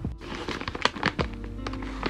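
Background music with held notes and a sharp, steady beat. It drops out briefly near the very start.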